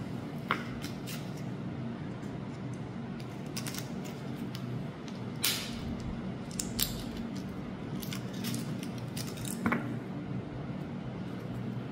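Scattered small clicks and ticks, with one short scrape about halfway through, from metal tweezers and fingers handling a silver-oxide watch button cell and its blister card. A steady low hum runs underneath.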